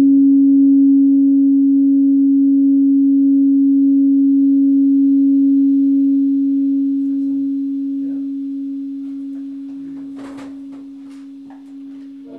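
Electric guitar holding one long, steady, almost pure note near middle C in a free improvisation, slowly fading over the last few seconds. A few light clicks and scrapes from handling the strings come near the end.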